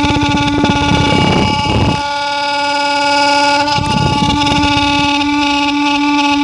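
Heater blower fan motor of a Mitsubishi Minicab U62T kei truck running with a loud, steady horn-like hum, broken by rough grating bursts over the first two seconds and again about four seconds in. This abnormal noise is the sign of a failing blower motor.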